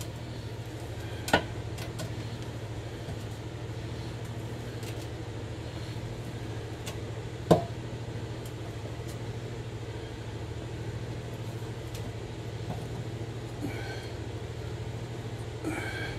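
A knife scoring raw pork skin in a roasting pan, quiet cutting under a steady low hum, with two sharp clicks, about a second in and again about seven and a half seconds in.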